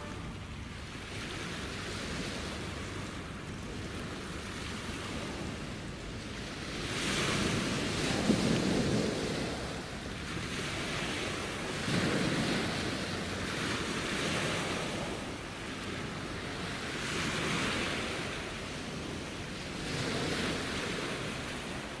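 Small sea waves breaking and washing over a shingle beach, the surf swelling and ebbing every few seconds, with wind buffeting the microphone.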